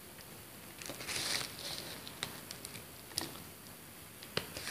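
Quiet eating sounds: a few short crisp crunches and soft mouth clicks as raw shredded-vegetable singju salad is eaten by hand.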